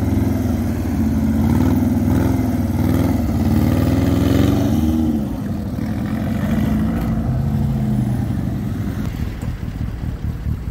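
Motorcycle trike engines running and revving as the trikes ride slowly past. The engine note wavers and rises about four seconds in, then falls away around five seconds, leaving a lower, quieter engine note.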